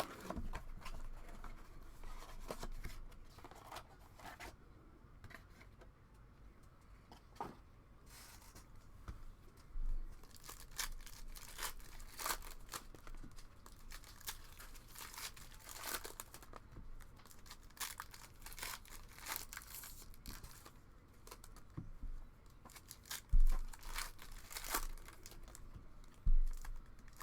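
Trading card blaster box and foil card packs being torn open, with wrappers crinkling and cards being handled. A few dull thumps, the loudest near the end.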